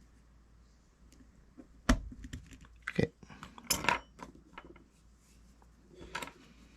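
Small metal clicks and clinks of a tool working at a retaining clip inside a Gomexus SX450 fishing reel, with one sharp click about two seconds in the loudest, then a cluster of quicker clicks and scrapes.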